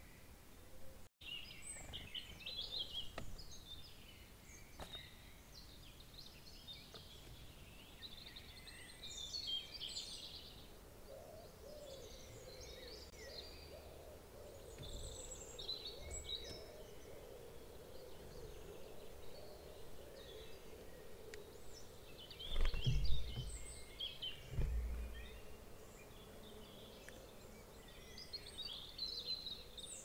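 Songbirds singing and chirping in woodland, with many short phrases overlapping. A faint steady drone sets in about a third of the way through, and two dull low thumps come close together past two-thirds of the way.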